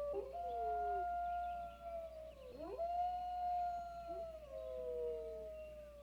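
Several coyotes howling together, two or more long held howls overlapping at different pitches and sliding slowly down. A quick rising yip breaks in about two and a half seconds in.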